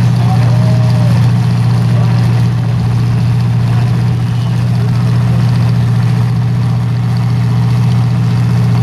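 Demolition derby car engines idling together in a loud, steady low drone.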